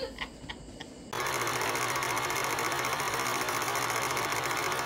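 Old film projector running, a steady rapid mechanical clatter over a low hum, which cuts in abruptly about a second in after a moment of faint room sound.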